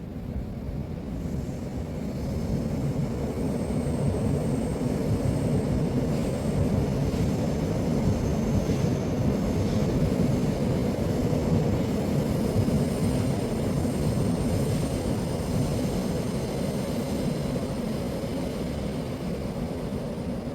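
Flowing stream water rushing steadily, a deep, full sound that swells a little about two seconds in.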